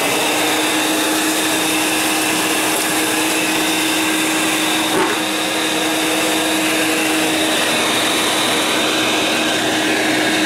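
An old Hoover Portable vacuum cleaner running steadily at full speed, a constant motor hum with a high whine. There is a faint tick about five seconds in.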